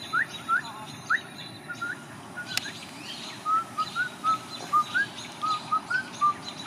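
A bird chirping over and over, about two short notes a second: quick upward-flicking chirps at first, then shorter, flatter notes, over a steady outdoor background hiss.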